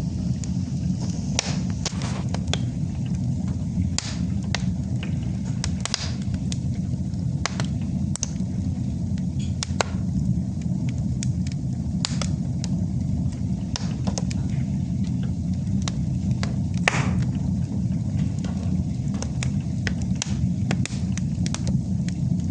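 Wood fire burning in a fireplace: irregular sharp crackles and pops over a steady low rumble of the flames, with one louder pop about seventeen seconds in.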